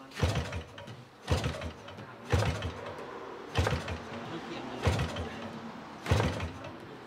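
150cc two-stroke engine of a large-scale model Cessna being hand-propped. Six times, about once every second and a bit, a flip of the propeller turns the engine over in a short clattering burst, and it does not keep running between flips.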